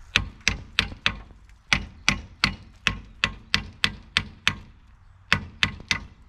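Hammer blows, about sixteen sharp strikes in quick runs of roughly three a second with a short pause between runs, on the rear brake drum of a 1955 VW Beetle to knock loose a drum that is hanging on the brake shoes.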